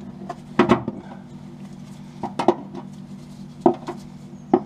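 Sharp metal knocks and scrapes as a paint scraper and then a chisel are forced against a plug-welded steel wing lip, prying to test the welds: about four separate knocks, some in quick pairs, over a steady low hum.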